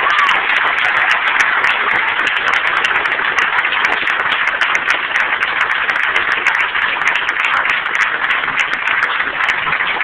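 Congregation applauding, a dense, steady clatter of many hands clapping.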